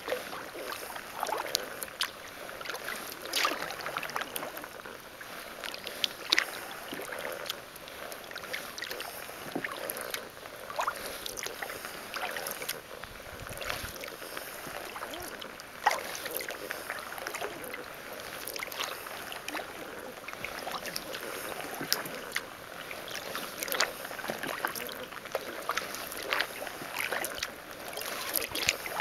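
Kayak paddle strokes in calm river water: the blades dip and splash, and drips fall from them at irregular intervals.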